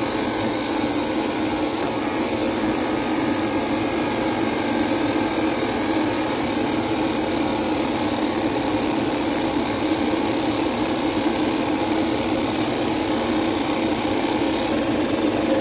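Steady drone of running machinery in a laser-engraving shop: a constant low hum with hiss over it, unchanging in level, its upper hiss shifting slightly near the end.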